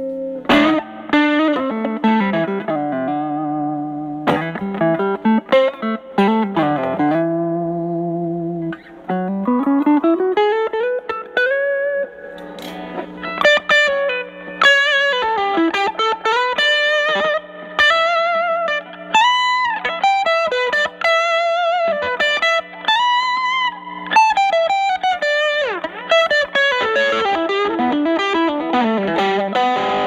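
Telecaster with single-coil Alnico pickups played through a Fender Studio Reverb combo's 8-inch Celestion speaker, overdriven with an Ibanez Tube Screamer mini stacked in front of the amp's gain. Blues lead lines of single notes, with slow string bends about nine to twelve seconds in and wide vibrato on held notes.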